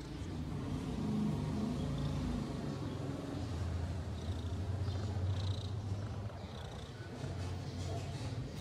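Domestic cat purring, a low steady purr that swells and eases with its breathing.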